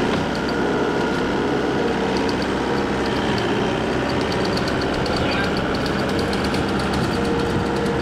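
New Holland C232 skid steer's diesel engine running steadily.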